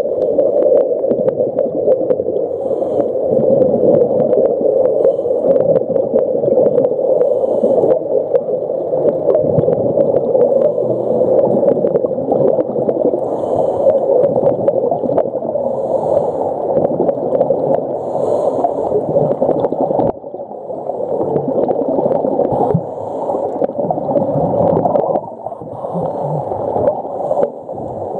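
Muffled underwater sound recorded through a camera housing: a steady gurgling wash of water and bubbles with many scattered crackling clicks, briefly quieter a few times in the last third.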